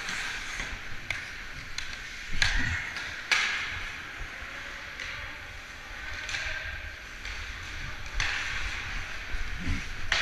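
Hockey skate blades carving and scraping the ice in repeated hissing bursts with the strides and stops, the loudest a little over two and three seconds in and again near eight seconds. A few sharp clicks come in between, over a low rumble.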